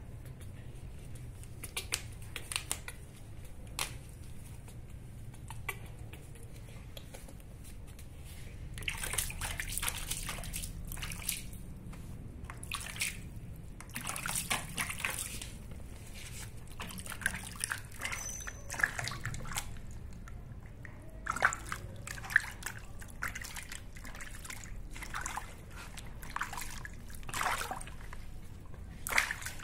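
Water sloshing and splashing in a plastic basin as a hand scoops and pours it over a baby monkey being washed, in irregular splashes and drips.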